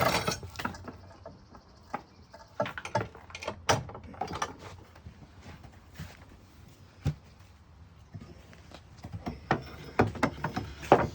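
Scattered knocks and clunks of metal parts on a homemade sawmill being handled and fitted into place, about a dozen uneven strikes with short gaps between them.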